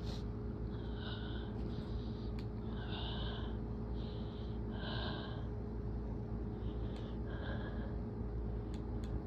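About half a dozen short, breathy sniffs and catching gasps through a cold-congested nose: a sneeze build-up, with no sneeze released.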